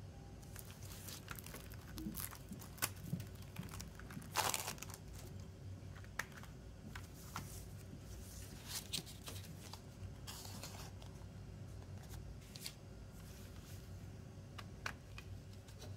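Thin plastic shrink-wrap on a CD jewel case crinkling and tearing as it is handled and peeled off by hand, with scattered crackles and clicks. The loudest rustle comes about four and a half seconds in.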